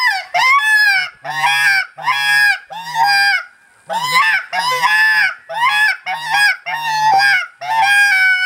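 Point Blank Calls Cry Baby open-reed call blown hard in a predator-distress sequence: a rapid series of about a dozen loud, pitched wailing cries, each roughly half a second, with added growliness or throatiness, shaped by cupped hands. It imitates an animal being attacked by another predator, meant to bring in coyotes, bobcats, foxes and other predators.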